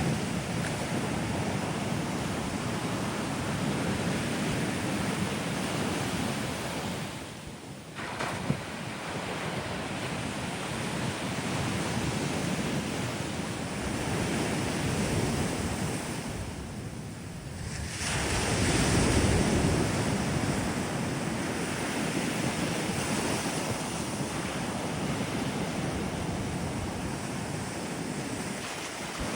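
Ocean surf breaking on a sandy beach, a continuous wash that swells and eases, with brief lulls about a quarter of the way in and just past halfway, then a louder surge.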